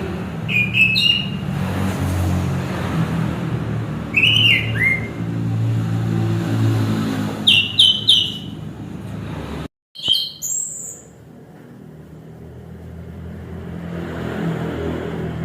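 Orange-headed thrush (anis kembang) singing short whistled phrases with quick pitch slides, four phrases a few seconds apart, over a low rumble like distant traffic that stops briefly about two-thirds of the way through.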